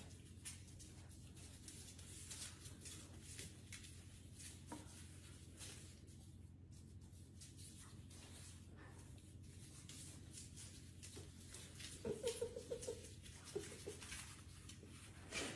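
Dachshund puppy's claws clicking and scratching on a tile floor as it turns in circles, over a low steady hum. About twelve seconds in, a brief high-pitched squeak.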